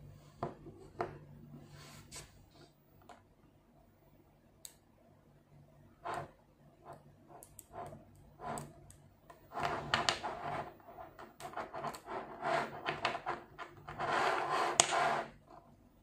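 5mm neodymium magnetic balls clicking and snapping together as they are handled. Single scattered clicks give way to denser runs of clattering in the second half, loudest near the end.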